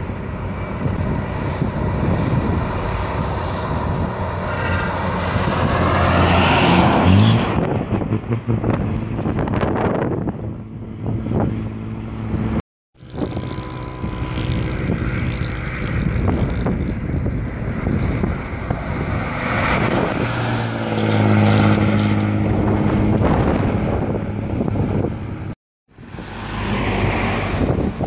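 Diesel bus engines driving past in three clips, one after another, with a sudden cut between each. First a Hino AK1J's engine climbs in pitch as it accelerates, then an Isuzu bus passes, then a Nissan bus.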